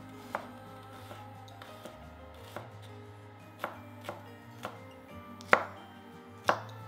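A kitchen knife chopping food on a cutting board, about seven separate strokes at an uneven pace, the two loudest near the end, over background music.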